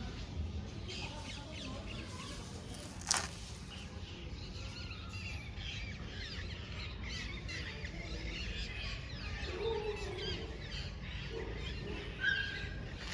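Birds chirping over and over, many short high calls over a steady low hum, with one sharp click about three seconds in.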